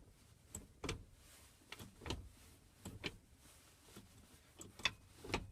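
Manual gear shift lever of a Mustang, just fitted with a short-throw shifter, being moved through the gears: a series of light clicks and clunks as it drops into each gate.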